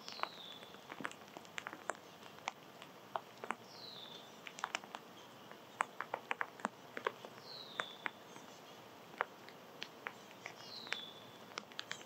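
Many sharp, irregular clicks and taps from small animals at a feeder, while a bird repeats a short, downward-slurred call four times, about every four seconds.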